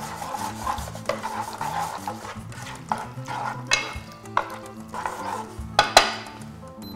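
Pasta being tossed with metal tongs in a frying pan of hot oil with garlic and chili: a light sizzle with scraping, and several sharp clinks of the tongs against the pan, the loudest two close together near the end.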